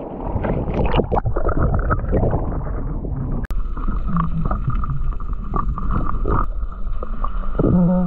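Water sloshing and splashing against the camera at the surface. About three and a half seconds in it cuts to the muffled gurgle of water with the camera submerged, with a steady high hum and a few short low sounds.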